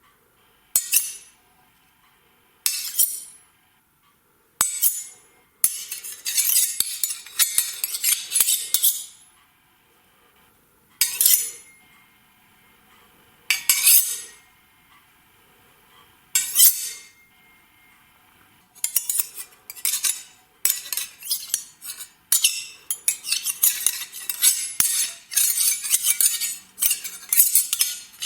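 Sword blade sound effects: short metal-on-metal strikes and scrapes, each ringing briefly. Single strikes come a second or two apart, with a quick flurry of many strikes about six seconds in and a longer rapid run from about nineteen seconds on.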